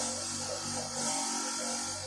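A motor-driven tool running steadily: a low hum under a strong hiss, with a brief dip in the hiss about a second in.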